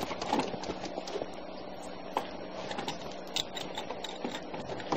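Scattered small clicks and rattles of draft-horse harness hardware (chains, snaps and buckles) being handled while a team is hitched to the tongue.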